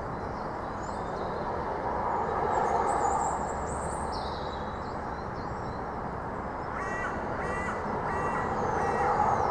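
A crow cawing a few times in quick succession in the second half, over a steady low background rumble, with small birds chirping faintly earlier on.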